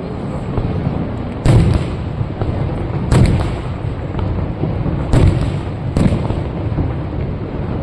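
Aerial fireworks shells bursting: four booms, the first three about one and a half to two seconds apart and the last following closely, over a steady background hiss.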